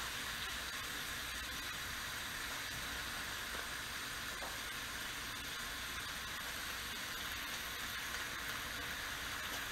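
Bacon sizzling on a new cast iron griddle over a propane camp stove: a steady, even hiss.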